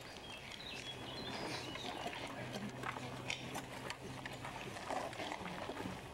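Quiet open-air ambience with scattered small clicks and knocks, and a steady low hum from about half a second in until nearly five seconds in.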